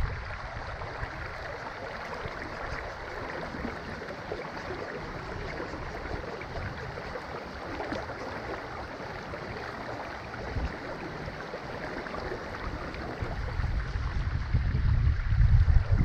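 Shallow creek water running steadily over stones, an even rushing. Wind buffets the microphone with a low rumble that fades out at the start and builds again near the end.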